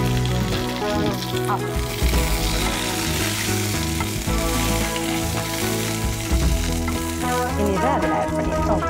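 Curry leaves and mustard seeds sizzling in hot oil in a nonstick frying pan, stirred with a metal slotted spoon: the tempering for a fish curry.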